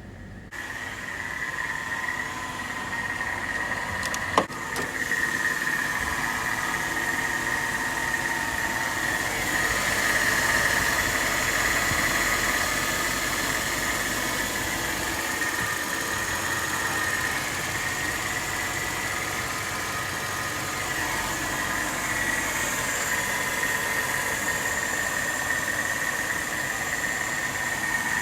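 Mercedes-Benz W221 S550's naturally aspirated 5.5-litre V8 and stock exhaust running steadily, without clear revs, with a sharp click about four seconds in.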